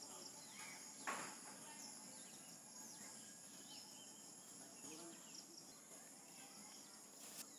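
Near silence: faint outdoor background with a steady high-pitched insect drone, typical of crickets, and a brief faint sound about a second in.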